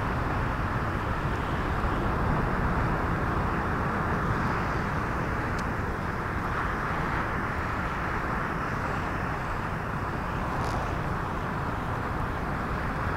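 Ocean surf breaking on a rocky shore: a steady wash of noise.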